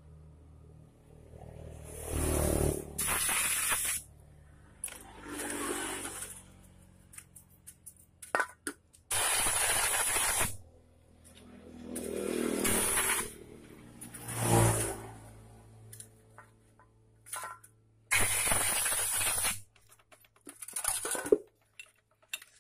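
Short hissing sprays, about eight of them, each lasting up to a second and a half, blown into the holes of a motorcycle carburetor as it is cleaned. Light clicks of small metal parts being handled come between them.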